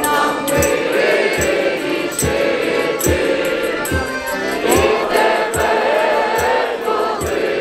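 A large group singing a Ukrainian Christmas carol (koliada) together, over a steady drum beat a little under once a second.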